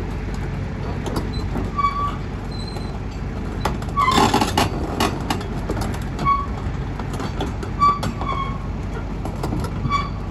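Diesel engine of a 2001 Kobelco SK250LC excavator idling steadily, with short high squeaks now and then and a louder noisy burst about four seconds in.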